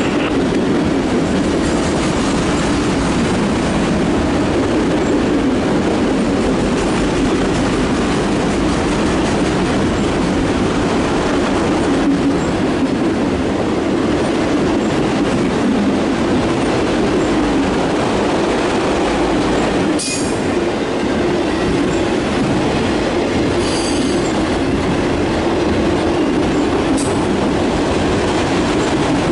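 Empty autorack freight cars rolling past close by: a steady rumble of steel wheels on rail. A few brief, sharp high clicks come near the end.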